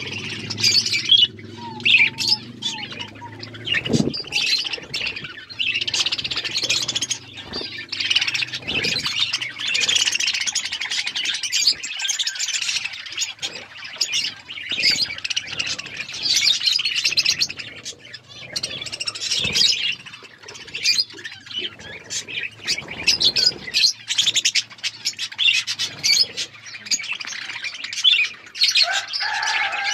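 Several budgerigars chattering and chirping without pause, the calls dense and overlapping, with many sharp clicks among them.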